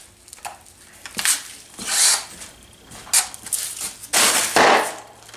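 A handful of sharp knocks and bangs as chicken coop kit pieces are handled and fitted during the roof assembly, the longest and loudest about four seconds in.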